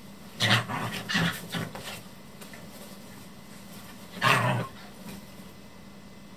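A dog chasing its own tail, letting out short loud growling barks: three quick ones in the first two seconds and a louder one a little after four seconds in.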